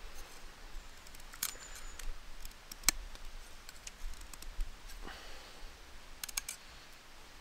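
Bushcraft knife cutting a notch into a green wooden stick: a scattering of small clicks and scrapes as the blade bites and chips of wood are carved out, the sharpest click about three seconds in.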